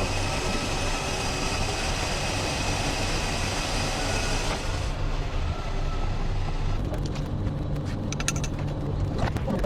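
Small car engine idling steadily with an even low hum. A hiss over it falls away about halfway, and a few light clicks and knocks come near the end.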